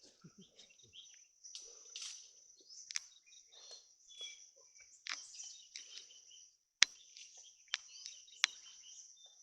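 Forest ambience: a steady high-pitched insect drone with many short bird chirps. Three sharp clicks or snaps come in the second half, the first the loudest.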